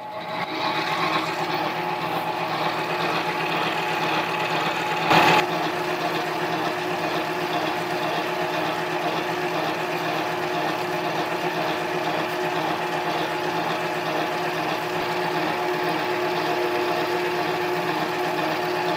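Mini lathe spinning up and running at a steady speed, its motor and drive giving an even hum with a few steady tones. A hand file is held against the spinning 6061 aluminium pulley to round its corners. A brief louder burst comes about five seconds in.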